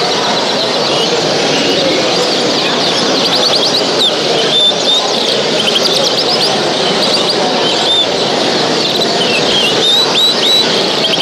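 Many small cage birds chirping and calling at once, a dense stream of quick high chirps and whistles over a steady murmur.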